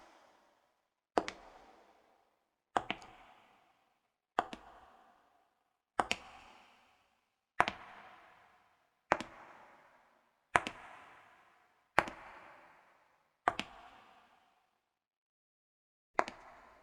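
High-heel shoes walking slowly on concrete: nine sharp, echoing heel clicks about a second and a half apart, each a quick double strike.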